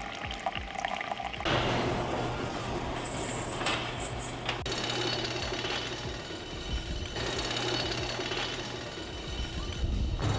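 Coffee machine brewing into a travel tumbler: the pump buzzes steadily while coffee streams into the cup, starting about a second and a half in.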